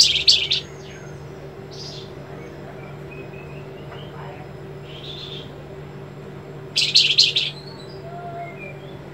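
Caged flamboyan bird singing: two bursts of sharp, rapid high notes, one at the start and one about seven seconds in, with softer chirps between. This is the trilling, sharply slashing song ('besetan') that keepers value in this bird. A steady low hum runs underneath.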